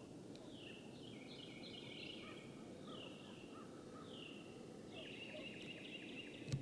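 Faint songbirds singing: one repeats a down-slurred whistle about once a second while others trill, over a steady low outdoor hiss. A short knock comes near the end.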